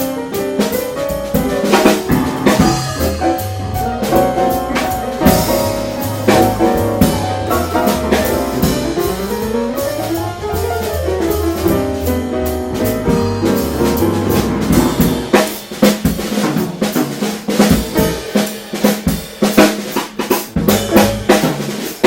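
Jazz piano trio playing: piano, bass and a drum kit with snare and cymbals, the piano running up and down in the middle. From about fifteen seconds in, the bass drops away and the drums take over with sharp snare and rimshot hits.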